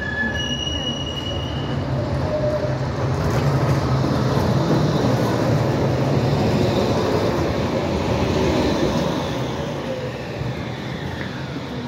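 Low-floor ZET tram (CroTram TMK 2200) running on street track past the stop at close range: a steady motor and wheel hum that builds as it comes alongside, then fades as it slows, with a faint falling whine near the end as it brakes to a halt.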